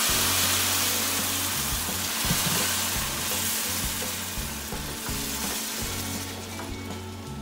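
A blended liquid poured into a hot skillet of rice toasted in butter hits the fat with a sizzle that is strongest at first and slowly dies down, while a wooden spatula stirs the rice through the liquid.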